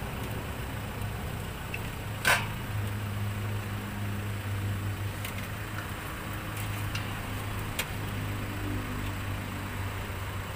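Meatball skewers deep-frying in a steel pot of hot oil, a faint sizzle, with metal tongs clicking as the skewers are lifted out: one sharp click about two seconds in and a few lighter ones later. A steady low hum runs underneath.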